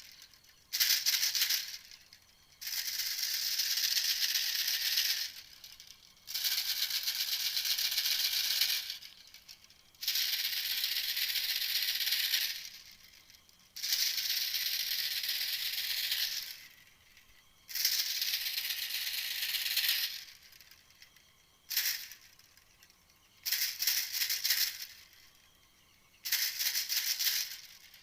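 Recorded bird call played as a hunting lure: a buzzy, rattling trill repeated in bursts of one to two and a half seconds, each followed by a short pause.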